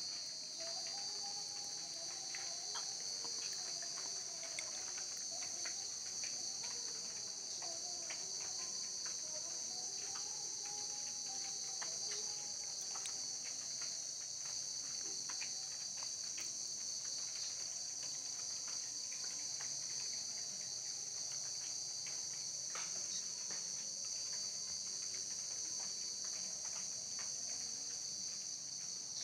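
Steady, high-pitched chorus of night insects chirring without a break.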